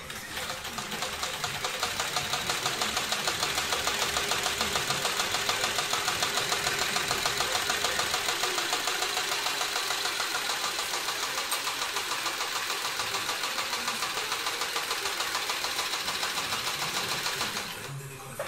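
Cowboy 3200 heavy-duty walking-foot sewing machine stitching thick synthetic webbing at a steady fast pace. The needle and feed mechanism knock in an even, rapid rhythm. It stops about a second before the end, followed by a short click.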